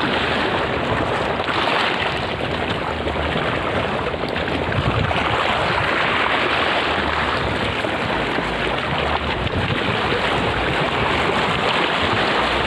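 Steady rushing noise of wind and choppy sea water.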